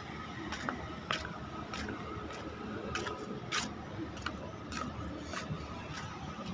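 Low rumble of slow, jammed street traffic, with light clicks about every half second and a faint steady tone above it.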